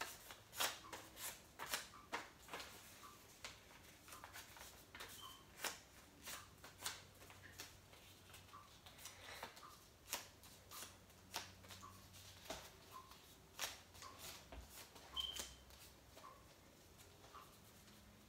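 Folded paper slips crinkling and crackling as they are handled and unfolded by hand, in irregular sharp crackles a few times a second.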